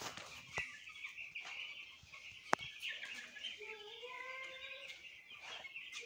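A flock of ten-day-old broiler chicks peeping all together in a dense, high chatter, with an occasional sharp click.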